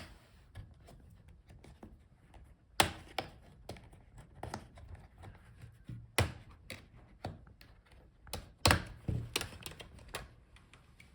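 Pry tool working around the edge of a Lenovo IdeaPad Slim 7 14ITL05 laptop's bottom case, its retaining clips clicking loose: a string of irregular sharp clicks and taps, the loudest about three seconds in and again near nine seconds.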